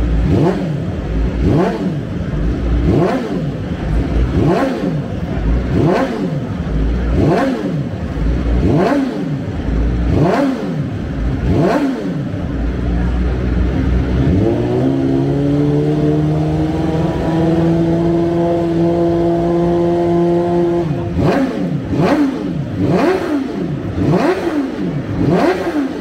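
BMW M1000RR superbike's inline-four engine revved in quick throttle blips, the pitch shooting up and falling back about once a second. About halfway through it is held at a steady raised rev for around six seconds before the blips resume.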